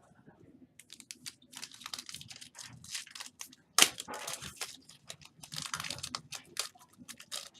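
A foil trading-card pack being torn open and crinkled, with cards handled and slid, in a run of short crackly rustles; a sharp snap about four seconds in is the loudest sound.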